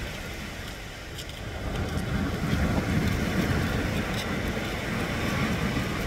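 Sea waves breaking and washing up a sandy, pebbly shore, a steady rushing surf with a low rumble that swells louder about two seconds in.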